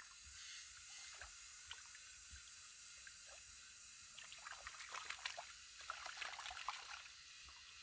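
Hands splashing and scooping in shallow muddy stream water while feeling for fish, with scattered splashes at first and a quick run of them in the second half. A steady high hiss sits underneath.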